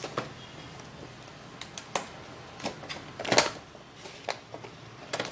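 Cardboard toy box being handled and opened: scattered clicks, scrapes and crinkles of cardboard and plastic packaging, the loudest about three and a half seconds in.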